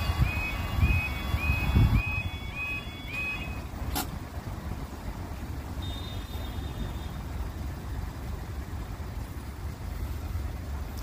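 Level crossing warning alarm sounding a repeating warble, about two a second, that stops about three and a half seconds in. A sharp click follows, and a low rumble runs underneath throughout.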